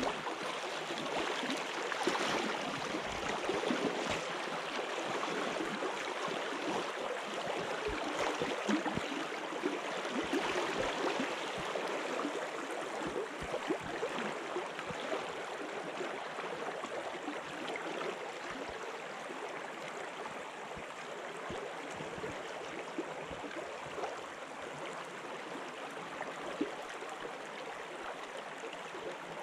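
River water running, a steady rush of flowing water, with occasional small clicks.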